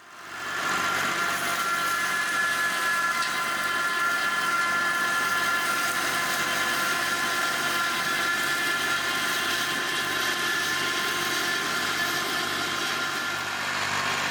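Tractor-driven flail mulcher running: a steady mechanical din from the tractor engine and the spinning flail rotor, with a steady high whine on top. It fades in quickly at the start.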